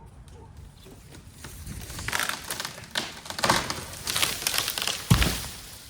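Leafy tree branches crackling and rustling for a few seconds, then one heavy thud about five seconds in.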